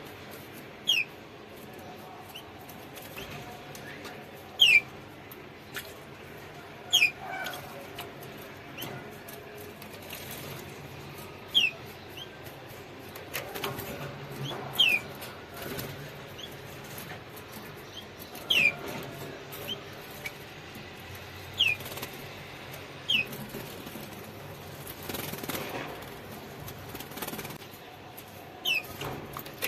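Canary giving short, sharp chirps, each sliding down in pitch, repeated every second or two over a low steady background hum.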